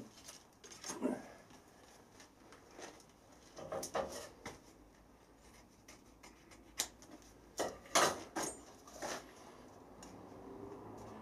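Cardboard template being handled and pressed against a welded aluminium tube, giving faint scattered rustles and light taps, a few sharper clicks in the second half.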